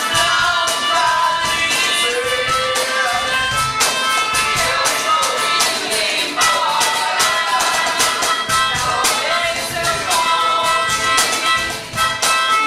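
Music with a quick, steady percussion beat under a wavering melody line.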